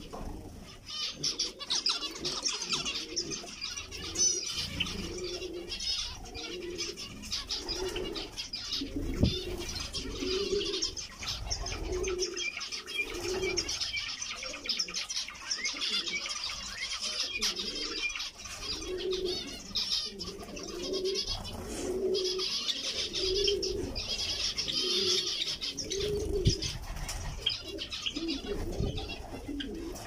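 A dove cooing, a low note repeated about once a second, over the constant high chattering calls of a flock of zebra finches, with a couple of brief low thumps.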